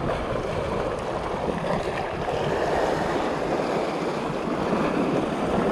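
Sea surf washing over shoreline rocks: a steady rush of water that swells a little midway, with wind on the microphone.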